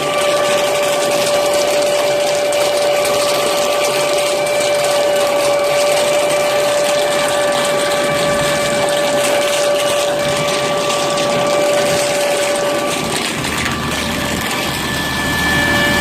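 Hasatsan H 1800 mechanical sweeper nut harvester running steadily, a constant machine whine over a loud rushing noise. About thirteen seconds in, a higher whine joins and the sound grows slightly louder.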